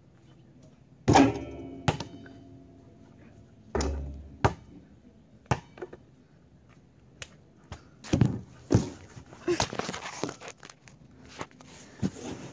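A basketball striking a portable hoop, the rim and backboard ringing briefly, then a series of bounces and thuds on the driveway. Near the end, close knocks and scuffs come as the ball and a hand come down on the hoop's plastic base.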